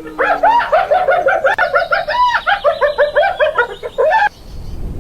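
Hyena laughing: a rapid run of high yelping, giggle-like notes, about five a second, that stops about four seconds in.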